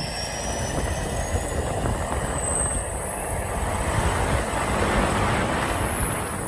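A truck with a 6.0 Powerstroke diesel running hard under heavy throttle: loud rushing noise builds, and a high thin whistle climbs steadily in pitch.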